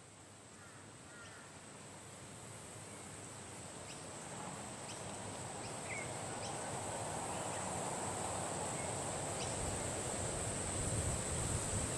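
Wind blowing with scattered short bird chirps over a steady high-pitched hum, growing gradually louder, with low gusts near the end.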